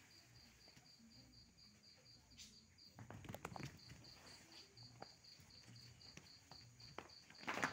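Cricket chirping steadily, about four pulses a second, with a short pause about three seconds in. A few faint knocks and scuffs come in the second half.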